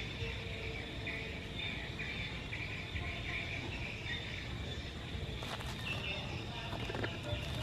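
Outdoor ambience: insects and birds chirping over a steady low rumble, with a few faint clicks near the end.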